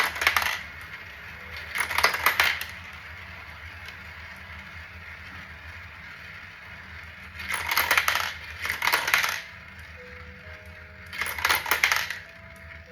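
Marbles rattling and clicking down a homemade marble run, in about five short bursts of rapid clicks with quieter stretches between.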